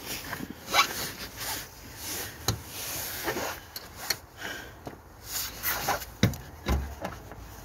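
Irregular knocks, clicks and fabric rubbing from hands-on work around a car's engine bay, with a few sharper knocks in the second half.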